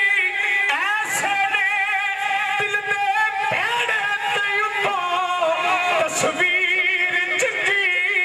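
A man singing solo into a microphone, amplified through a loudspeaker, holding long notes that waver and bend in pitch.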